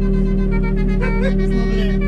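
Music: a melody of short woodwind-like notes over a steady low drone, with a brief gliding sound about a second in.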